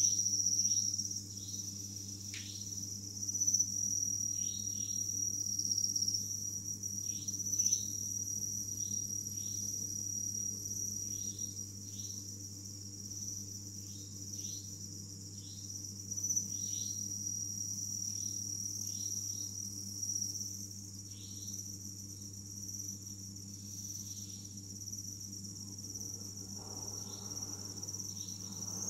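Crickets singing: a steady high-pitched trill, with short falling chirps every second or so and a steady low hum beneath.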